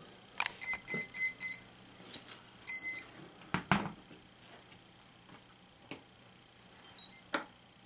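A quadcopter's electronic power-up beeps just after the flight battery is connected: four short high beeps about a second in, then one longer beep near the three-second mark. A loud knock from handling the airframe follows, then a few faint clicks.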